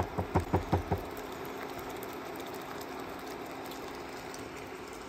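About six quick light knocks in the first second, a utensil against a stainless steel pan, then the steady hum of an induction cooktop running under a pan of reducing sauce.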